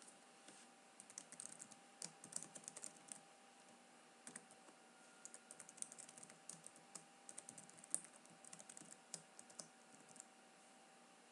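Faint computer keyboard typing: quick runs of keystrokes, with a short break about three seconds in. A faint steady hum sits underneath.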